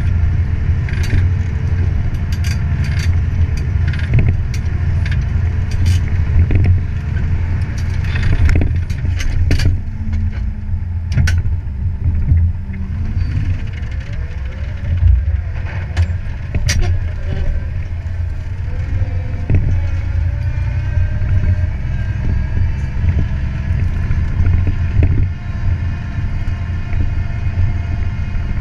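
Fiat 180-90 tractor's six-cylinder diesel engine running steadily under load while pulling a plough through the soil. Sharp knocks and rattles from the plough frame come through the rumble, most of them in the first ten seconds and again around sixteen seconds in.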